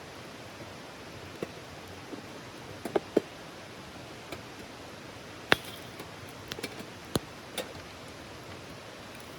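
Wood campfire crackling: irregular sharp pops and snaps, the loudest about five and a half seconds in and several close together near the end, over a steady hiss.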